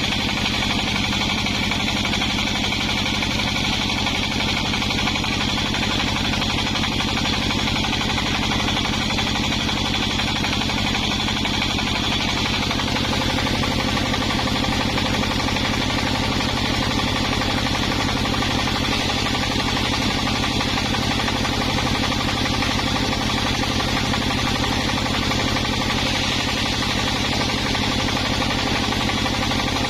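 A wood-cutting machine's engine running at a steady speed, with an even mechanical drone that does not change.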